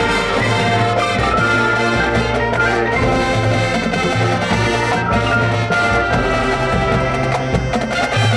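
High school marching band playing its field show: brass-led ensemble music, loud and steady throughout.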